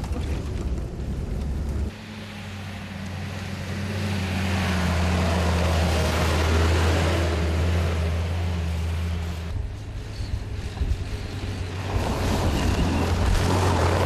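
UAZ-452 minibus engine droning steadily as the van drives over snow, with tyre and road noise. The sound changes abruptly about two seconds in and again near ten seconds, as the recording cuts between inside the cab and outside the van.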